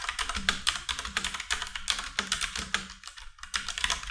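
Typing on the AOC Agon AGK700 mechanical keyboard with linear Cherry MX Red switches: a fast, steady run of keystrokes, not too loud for mechanical switches, with a brief pause about three seconds in.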